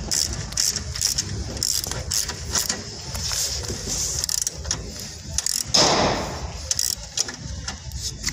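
Metal tools clicking and scraping on a running-board mounting bracket as a 14 mm nut and bolt are fitted by hand with a screwdriver and spanner: irregular light clicks, with one louder rasping scrape about six seconds in.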